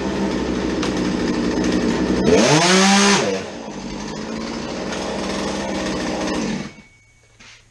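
Two-stroke chainsaw idling steadily, revved once about two seconds in with a quick rise and fall in pitch, then settling back to idle before it is shut off near the end. The saw holds its idle, the fault it was repaired for, which the mechanic takes as fixed.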